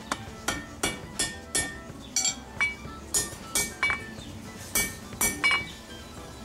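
Hand hammer striking a mild-steel bar on an anvil, about a dozen sharp, ringing blows in quick runs of three or four with short pauses between, forging the bend of a wall hook.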